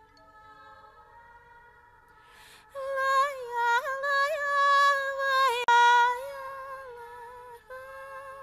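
Film soundtrack music: a single high melody line with wavering, vibrato notes, faint for the first few seconds, then coming in loudly about three seconds in and holding long notes.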